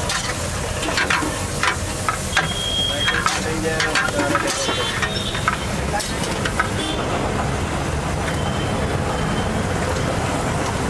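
Buns frying in a hot pan, sizzling, with a slotted metal spatula clacking and scraping against the pan in quick, irregular strikes. After about six seconds the clacks stop and the sizzle fades to a steadier background with a low rumble.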